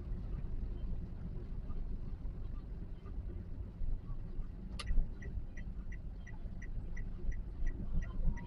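Steady low road and engine rumble inside a 2022 Toyota Calya's cabin. About five seconds in there is a sharp click, then the turn-signal indicator starts ticking evenly, about three times a second.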